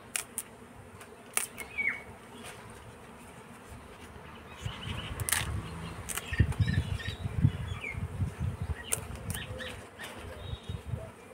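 Kohlrabi leaves being snapped off their stalks by hand and rustled in a wicker basket, with several sharp snaps. From about halfway in, a low, uneven rumble joins them.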